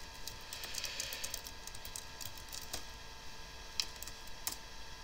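Computer keyboard keys typed in a quick, irregular run that stops about four and a half seconds in, over a faint steady whine from the computer.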